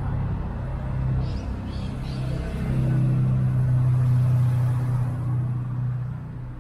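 A motor vehicle's engine droning steadily as it goes by, building to its loudest a few seconds in and fading near the end.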